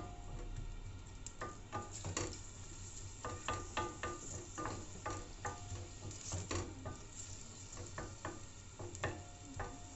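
Chopped onion sizzling in oil in a stainless steel pot as it browns, stirred with a wooden spoon that scrapes and knocks against the pan in short, irregular clicks.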